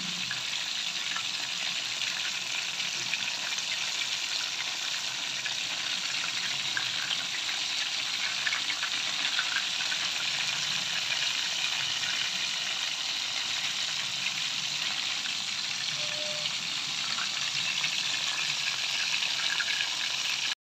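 Whole scored talakitok (trevally) frying in hot oil: a steady sizzle with fine crackles of spitting oil, cutting off suddenly near the end.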